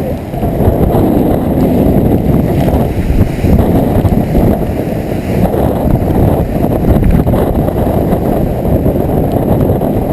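Hurricane-force wind buffeting the microphone: a loud, low, rough rumble that surges and eases without letting up.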